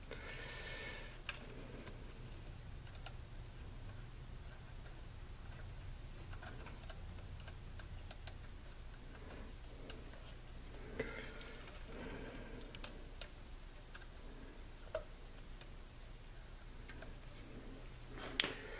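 Faint scattered clicks and small taps of wire leads being handled and bent onto a terminal lug inside a metal chassis, with a few sharper clicks, over a low steady hum.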